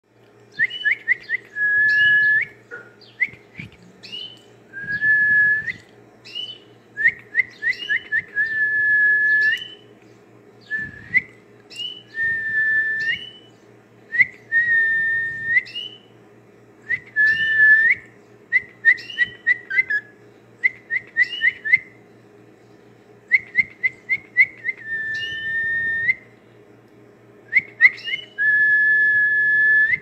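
Male cockatiel whistling a repeated tune: a quick run of short rising notes, then a long held whistle that flicks upward at the end, over and over every two to three seconds.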